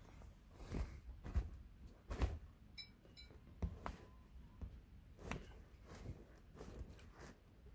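Scattered soft thumps and fabric rustles, quiet throughout, as a kitten shifts against a fabric cat tunnel on a mat and swats at a finger.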